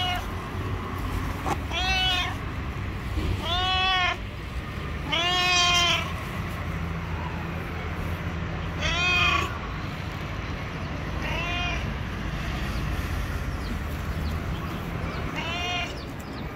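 Stray cat meowing repeatedly, about seven meows spaced one to four seconds apart, each one rising and then falling in pitch.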